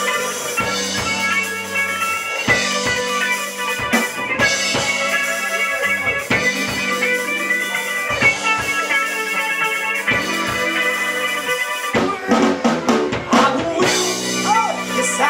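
Instrumental band music with drum kit and guitar: a steady drum beat under sustained melodic lines, the arrangement shifting about twelve seconds in.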